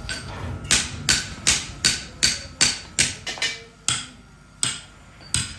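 Hammer blows on katana steel during forging. There are about a dozen sharp, ringing strikes at roughly two to three a second, and they space out to single blows near the end.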